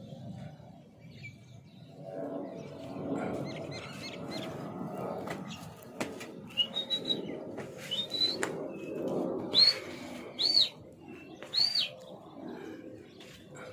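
Several loud, short whistles that rise and fall, starting about halfway through, over a low steady rumble. They are the sharp whistles a pigeon flyer uses to keep the flock circling, with a few sharp clicks among them.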